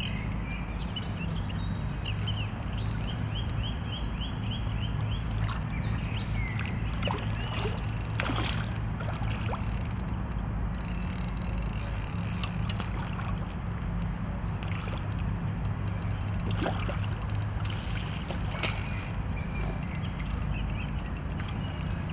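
Water splashing and sloshing as a hooked catfish is played in to the bank on a fishing rod, thrashing at the surface. Two sharp knocks stand out, about halfway and near the end, over a steady low hum.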